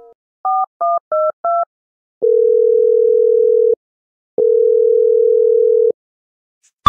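Mobile phone call being placed: four quick two-note keypad dialing beeps, then two long steady ringback tones, each about a second and a half, as the number rings.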